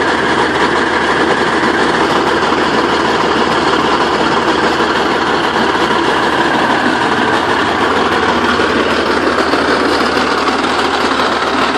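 T-55 tank's V12 diesel engine idling steadily after start-up.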